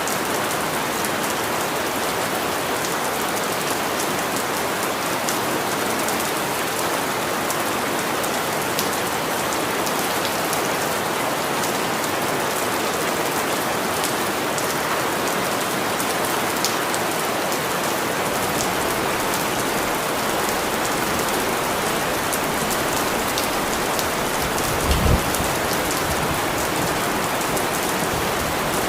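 Steady rain, a dense even hiss with scattered individual drop ticks. There is one brief low thump near the end.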